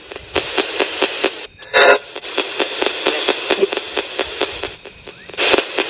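Ghost-box radio sweep: hissing radio static chopped by clicks about four or five times a second as it scans across stations, with short snatches of voice about two seconds in and again near the end.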